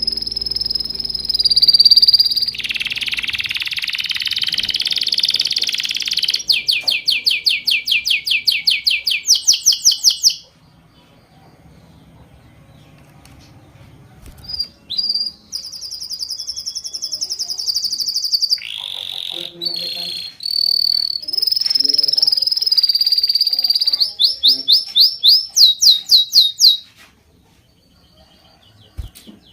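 A songbird singing two long songs with a pause between them. Each opens with high, steady whistled trills and ends in a run of fast, rapidly repeated rising notes, about three a second.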